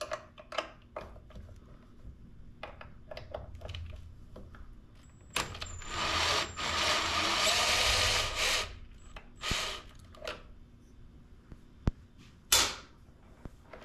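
Clicks and knocks of tools and small parts being handled, then a loud steady noise lasting about three seconds, and a sharp knock near the end.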